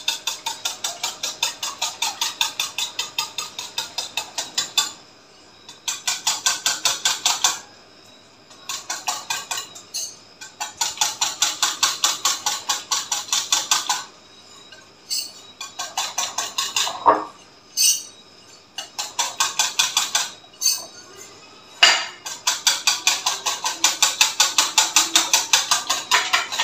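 A spoon beating thick yogurt in a glass bowl, clinking against the bowl in quick strokes about five a second. The strokes come in runs of a few seconds with short pauses between them, as the yogurt is whisked smooth and creamy for raita.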